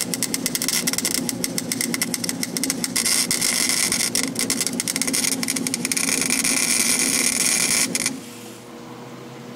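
Wire-feed welder running a continuous bead on steel, joining up earlier tack welds: an even crackling sizzle of the arc that stops abruptly about eight seconds in. A steady low hum runs underneath.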